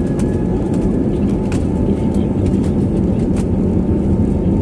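Steady low rumble of an Airbus A320's jet engines heard from inside the passenger cabin, with a faint steady whine and scattered light clicks and rattles.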